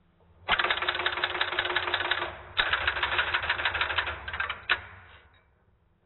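Step-by-step (Strowger) telephone line finder switch stepping its wipers, hunting for the calling line. It gives a rapid, even clatter of clicks for about two seconds as it steps the wipers up to the tenth level, then after a very short break a second run of about two seconds as it rotates them across to the tenth terminal. It ends in a last click and goes quiet.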